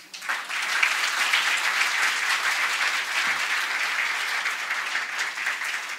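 Audience applauding, a dense patter of many hands clapping that starts just after a spoken line ends and thins out near the end.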